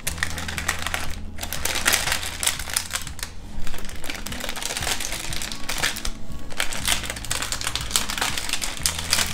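Baking parchment paper crackling and rustling as it is peeled slowly off the underside of a freshly baked genoise sponge, with a few short pauses.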